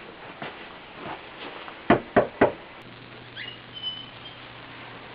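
A few sharp knocks, the loudest three close together about two seconds in, with softer taps around them.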